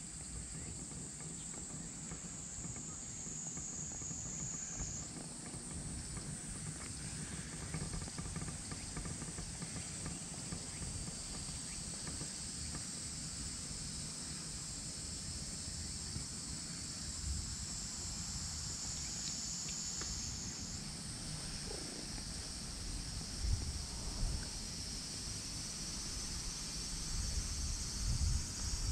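Cicadas droning steadily in a high, even chorus that jumps higher in pitch about five seconds in and again later on, over a low rumble with a few soft bumps near the end.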